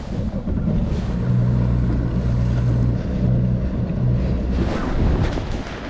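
Bass boat's outboard motor running underway with a steady low hum that drops out briefly twice, under heavy wind buffeting on the microphone and water rushing past the hull.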